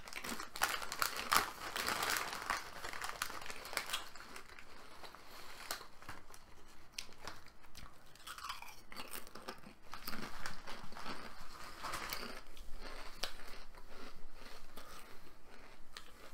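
A person crunching and chewing Walkers potato crisps close to the microphone, a long run of short, crisp crackles.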